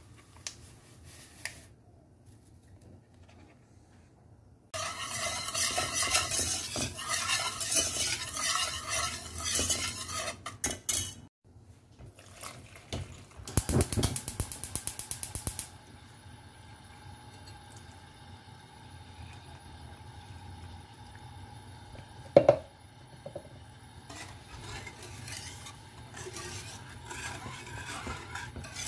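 Sachets of instant cappuccino powder rustled and emptied into a saucepan, then water poured in for a few seconds, then a wire whisk stirring the mixture. One sharp loud metal clank sounds about three-quarters of the way through.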